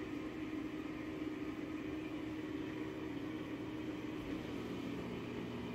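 A steady mechanical hum with a few held low tones under an even hiss, unchanging throughout.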